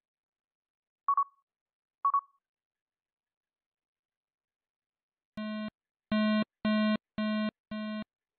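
Electronic alert tones from seismic-monitoring software as the local station registers earthquake shaking: two short high beeps about a second apart, then, a few seconds later, a run of five buzzy tones, each under half a second long.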